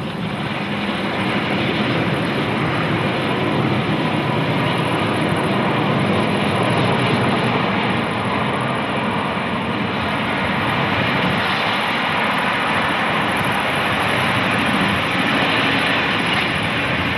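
Steam locomotive hauling a passenger train at speed: a steady rush of exhaust and rolling wheels that builds over the first second or two and then holds.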